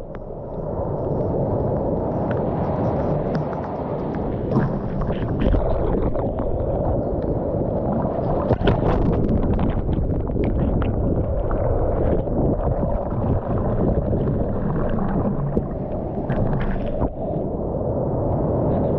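Steady wind rumbling on the microphone over the wash of ocean surf, with a few short clicks scattered through.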